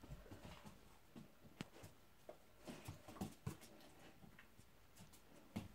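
Near silence broken by faint, scattered ticks and short snuffles: a flat-coated retriever sniffing along the floor, its claws tapping now and then as it moves, searching.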